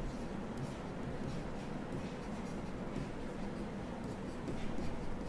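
Stylus writing on a tablet screen: faint, irregular scratches and taps of the pen tip as handwriting is written, over a steady low room hum.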